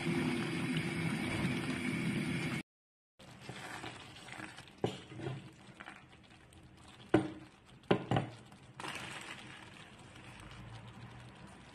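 Pasta and potato soup simmering in a pan while a wooden spoon stirs it, with a few sharp knocks of the spoon against the pan in the middle. A louder steady noise with a hum fills the first two and a half seconds, then breaks off at a cut.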